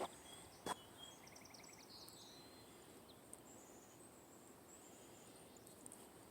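Quiet outdoor hush with faint trilled calls from small birds, several short rapid trills. Two sharp knocks come within the first second.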